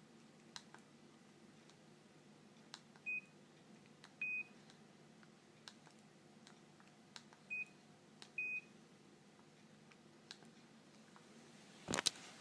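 Siemens MC60 mobile phone sounding two pairs of high single-pitch beeps, each pair a short beep followed by a longer one. Faint button clicks come between the beeps, and a louder knock comes near the end.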